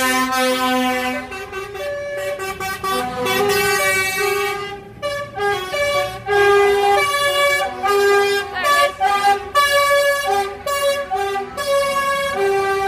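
Air horns of passing lorries sounding one after another. The held notes come at several different pitches and sometimes overlap, with the rumble of the lorries' engines underneath.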